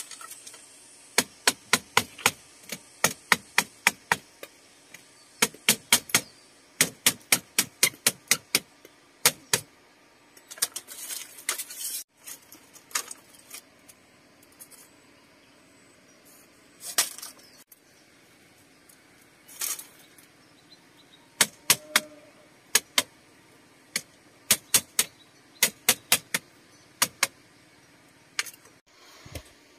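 Sharp knocks in quick runs of several, about three or four a second, with pauses between the runs and a few brief softer noises in the gaps.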